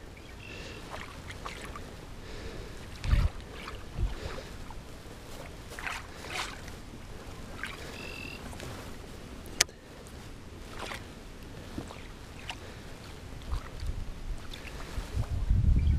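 Small splashes and water lapping at a boat hull as a twitchbait is worked in a figure-eight at the boat's side. Dull knocks on the boat come about three and four seconds in, and a few short high chirps are heard.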